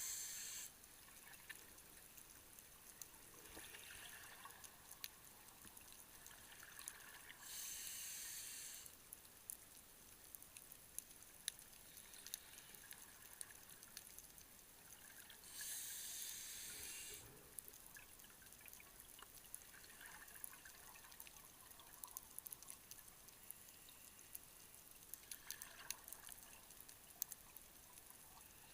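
Scuba diver breathing through a regulator underwater: exhaled bubbles rush out three times, about eight seconds apart, with fainter inhale hisses between them. Faint scattered clicks crackle throughout.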